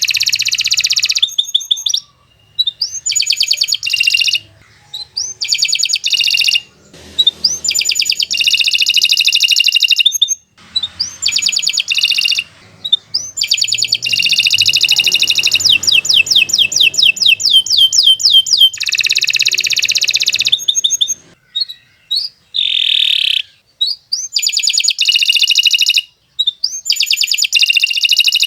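Domestic canary singing long, fast song phrases: rapid trills and repeated rising whistled notes, high-pitched, in bursts of one to several seconds with short pauses between.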